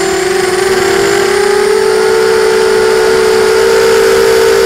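Four brushless motors and propellers of a QAV250 racing quadcopter, recorded by its onboard camera: a loud, steady whine whose pitch sags slightly at first and rises a little over the next second or two as the throttle changes.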